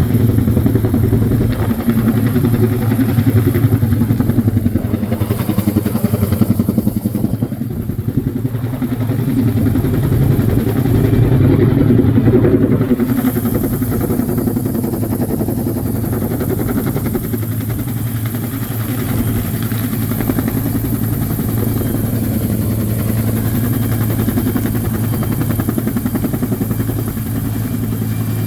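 Helicopter running close by, a loud steady drone of engine and rotor with a fast, even beat, dipping slightly in level a few times.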